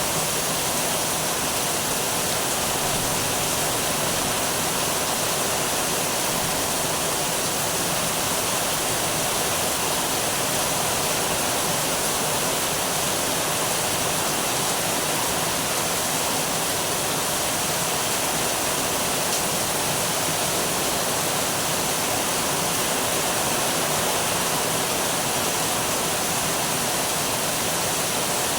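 Heavy rain pouring down in a steady, dense hiss that holds the same level throughout, with no thunderclap.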